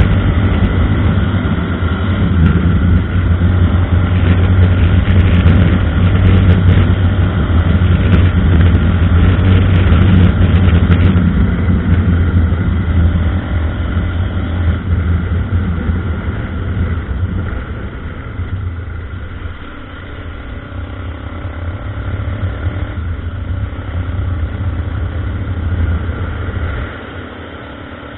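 Honda NX 350 Sahara's single-cylinder four-stroke engine pulling hard under acceleration. It then eases off about halfway through, picks up a little again, and drops away near the end.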